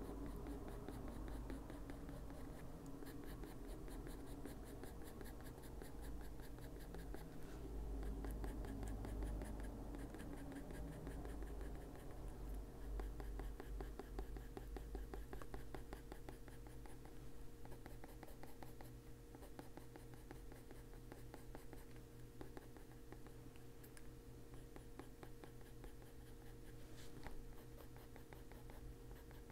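Derwent Drawing Pencil shading on paper, faint and scratchy, with many quick short strokes in a row.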